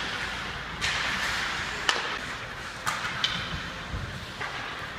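Ice hockey play: about four sharp clacks of sticks striking pucks, each with a brief ring in the arena, over a steady hiss from skates on the ice.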